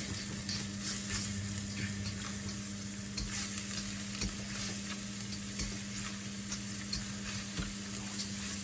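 Red curry paste with paprika and sugar frying in oil in a nonstick wok, sizzling with many small crackles while a spatula stirs and scrapes it around the pan. The paste is being fried at medium heat until fragrant, with a steady low hum underneath.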